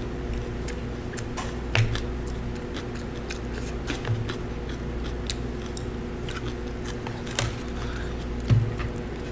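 Close-up sounds of a person eating: chewing with scattered small clicks of wooden chopsticks against the food tray, and a few dull knocks on the table, loudest about two seconds in and near the end, over a steady background hum.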